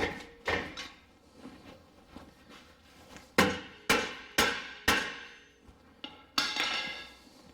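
Hammer blows on a rusted-on brake rotor, knocking it loose from the hub flange where rust has seized it. Two blows at the start, four in a row about half a second apart midway, and a last blow near the end that rings on.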